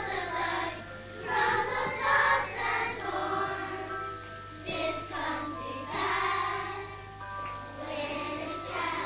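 A choir of young primary-school children singing a song together in phrases of a few seconds, with a faint steady low hum under it.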